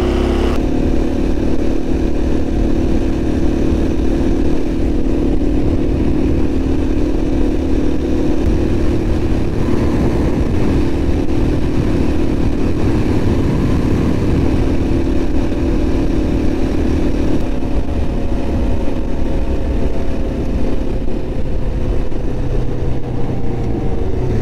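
Motorcycle engine running steadily under way, over constant rushing noise; over the last several seconds the engine note falls gradually as the bike slows.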